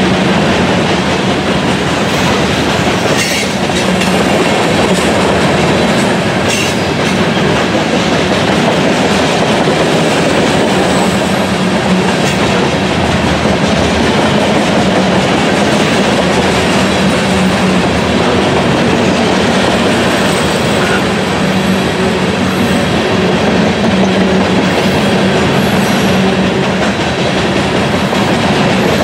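Freight train of CSX covered hopper cars rolling past, a loud steady rumble of steel wheels on rail.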